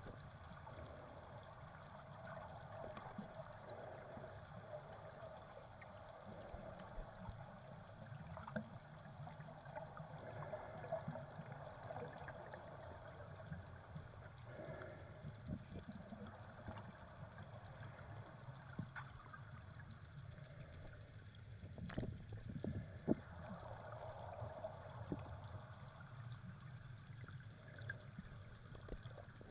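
Muffled underwater ambience heard by a submerged camera: a faint steady low rumble with water sloshing and scattered small clicks, and a cluster of louder knocks about two-thirds of the way through.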